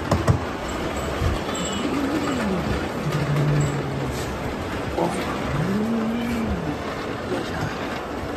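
Heavy rain falling steadily in a sudden downpour. A few short, low rising-and-falling tones sound over it.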